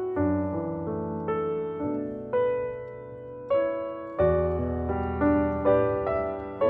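Background piano music: single notes and chords struck about every half second, each fading before the next.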